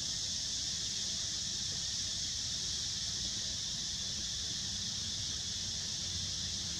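A steady, unbroken high-pitched drone of insects, with a low rumble underneath.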